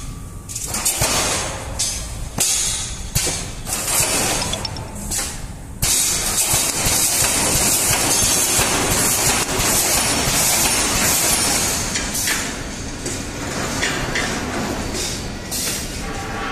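Rebar mesh welding machine running: its pneumatic air cylinders hiss and the welding heads clank as they press down on the steel wires and spot-weld them. The hiss and clanks come in uneven bursts, turning into a denser steady hiss about six seconds in.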